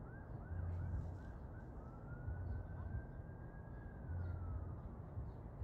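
Faint emergency-vehicle siren: a quick yelp of rising-and-falling chirps, switching about two seconds in to one long slow wail that rises and then falls away. A low rumble pulses underneath about every two seconds.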